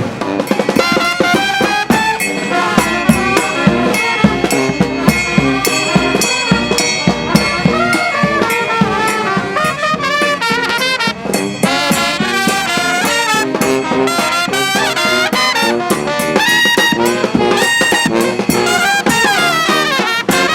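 Street brass band playing: trumpets and trombones carry the tune over drums.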